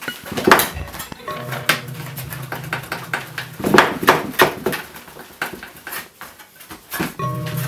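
A steel etching plate being cut and handled on a workbench: a series of sharp metallic clanks and scrapes, several strokes with lighter ticks between them. A low steady hum comes in near the end.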